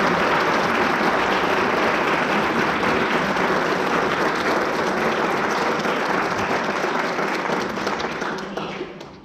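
Audience applauding steadily after a piece of music, the clapping tapering off near the end.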